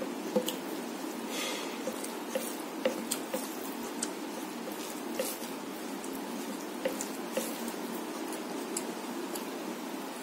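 Fingers mixing rice into chicken curry gravy on a plate: wet squishing with scattered short, sharp clicks, over a steady low hum.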